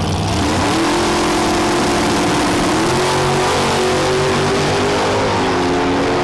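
Dragster engine revving hard on the start line and running at full throttle as the car launches down the drag strip; the pitch climbs about half a second in and then holds high and steady.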